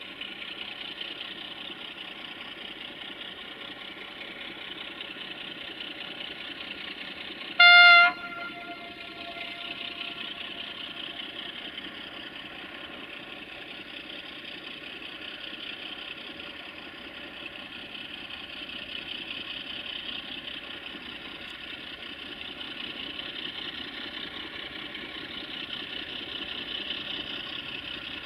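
Electroputere 060-DA (LDE2100) diesel locomotive's Sulzer engine running steadily as it approaches slowly, with one short single-note horn blast about eight seconds in.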